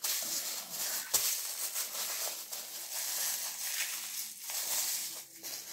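Paper napkin rustling and crumpling close to the microphone as greasy hands are wiped, with one sharp click about a second in.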